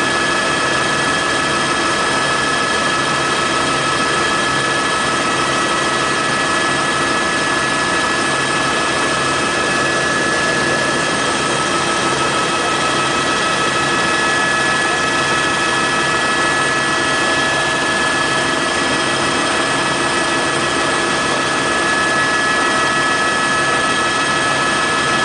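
Helicopter in flight heard from aboard: a steady turbine whine over continuous engine and rotor noise, unchanging throughout.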